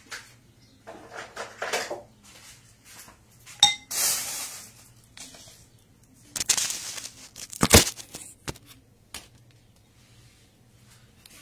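Dishes being handled at a table: scattered clinks and knocks of plates, a ringing clink about three and a half seconds in and a sharp knock near eight seconds, with short stretches of rustling between them.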